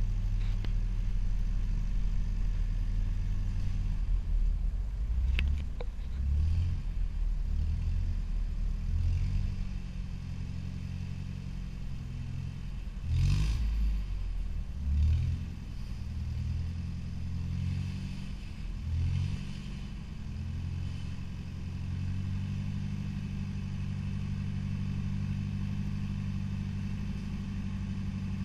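Fiat 312 R farm tractor engine running under load, its speed dipping and recovering again and again through the middle stretch before settling to a steady note. A short burst of noise sounds about halfway through.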